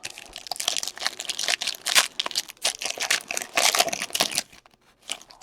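Plastic or foil wrapping crinkling and tearing as a trading-card box or pack is opened by hand. The crackling goes on in quick, irregular bursts for about four and a half seconds, then stops.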